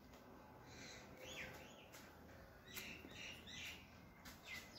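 Faint bird chirps, a few short rising and falling notes, over a quiet background.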